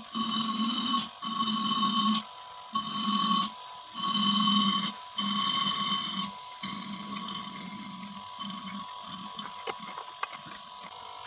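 Repaired air-conditioner compressor test-run in short repeated bursts, each a low hum with hissing air, about five bursts of roughly a second, weaker after the middle.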